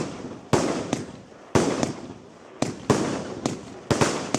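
Fireworks bursting in a quick series of about seven sharp bangs over four seconds. Each bang trails off in a fading rumble.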